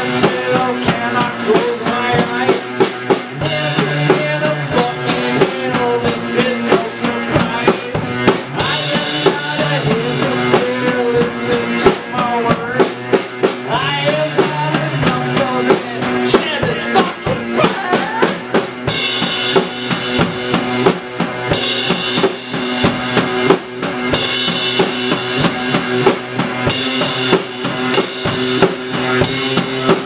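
Rock band playing live: drum kit with bass drum and snare driving a steady beat, electric guitar, and a singer on a microphone.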